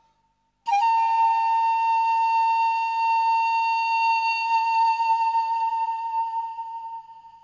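Pan flute holding one long, steady note, entering sharply with a slight upward bend shortly after a brief silence and fading near the end.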